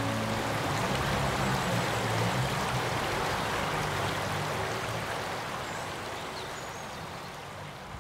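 River water flowing: a steady rushing that slowly fades out.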